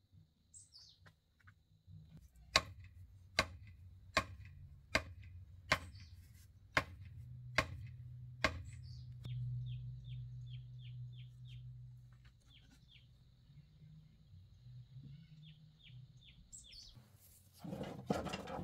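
Eight sharp knocks, evenly spaced a little under a second apart, then small birds chirping in short quick runs over a steady low hum. A brief noisy burst comes near the end.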